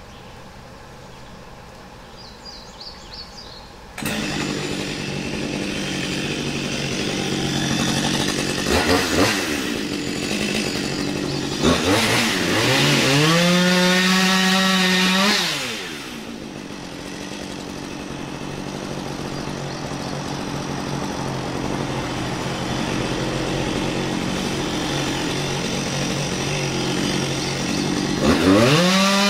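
Chainsaw running, coming in abruptly about four seconds in and revving up and down. It is held at full throttle for a few seconds midway while cutting into wood, drops back, and revs high again near the end.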